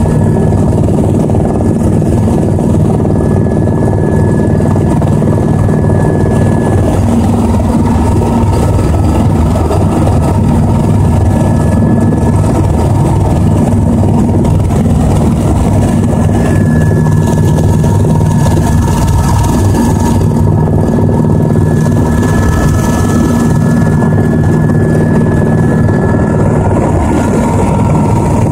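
Helicopter in steady cruising flight heard from inside the cabin: a loud, even drone from the rotors and engine with a thin, constant high whine above it.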